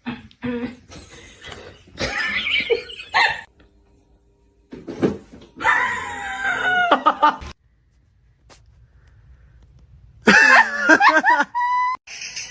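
Cat vocalizing in three separate bursts, with wavering, gliding calls.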